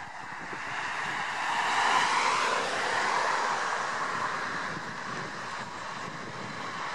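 A car passing on the road, its tyre and engine noise swelling to a peak about two seconds in and then slowly fading away.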